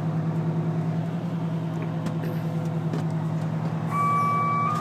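The fire truck's diesel engine running steadily at raised revs, driving the hydraulics while the aerial ladder is lowered. A steady high warning tone, stepping slightly in pitch, comes back about four seconds in.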